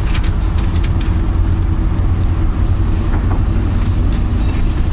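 Volvo B9TL double-decker bus running along the road, heard from inside: a steady low drone from its six-cylinder diesel engine mixed with road noise, with a few faint rattles from the body.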